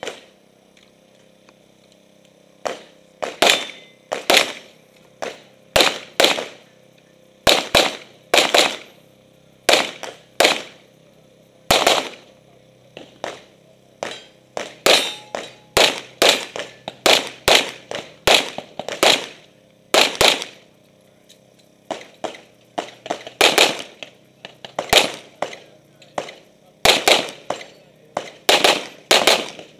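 Open-division competition pistol firing many shots, mostly in quick pairs a fraction of a second apart, with short pauses between strings as the shooter works through a USPSA stage.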